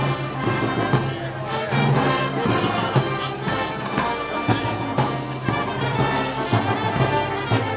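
Brass band playing festival march music (pasacalle style), trumpets and trombones over a steady beat.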